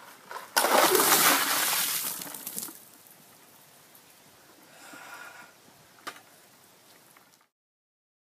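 A bucket of ice water dumped over a person: a loud rush of splashing water with clattering ice lasting about two seconds, followed by fainter dripping and shuffling and a single click. The sound cuts to dead silence near the end.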